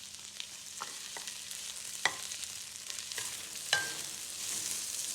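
Hot chilies sizzling in oil in a hot pan while being stir-fried, a steady hiss with the spatula knocking against the pan several times, the sharpest knocks about two seconds in and near the end, each ringing briefly.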